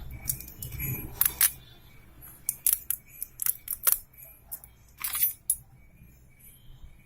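Irregular sharp clicks and taps of small hard objects being handled, about a dozen over several seconds, with a few louder ones about a second in and around the middle.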